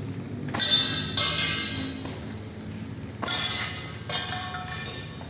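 D'Cobra P788 shotgun firing four shots, two about half a second apart a little way in and two more about three to four seconds in, each sharp report followed by metallic ringing as of struck steel targets.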